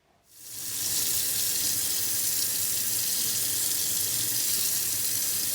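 Warm water running steadily from a tap, coming in over the first second.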